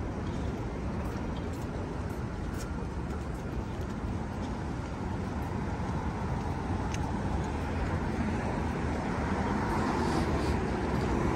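City street traffic noise: a steady rumble of passing vehicles that grows louder near the end as a vehicle comes close.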